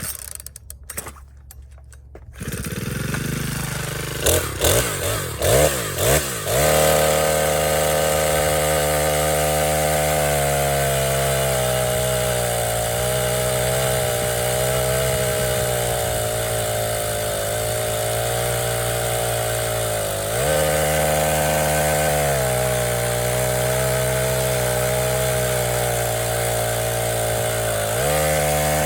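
Senix 46cc four-stroke chainsaw engine catching about two seconds in, given a few short blips of the throttle, then held at high speed, its pitch sagging and recovering a few times.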